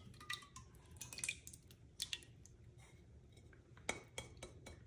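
Thick marinara sauce pouring slowly from an upturned glass jar into a ceramic slow-cooker crock: faint wet plops and small clicks, with a sharper tap on the jar just before the end.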